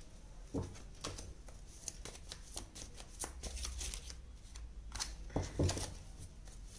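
Tarot cards being shuffled and handled: a run of quick, irregular light flicks and riffles, with a couple of louder slaps of cards on the deck or table, one just after the start and two about five and a half seconds in.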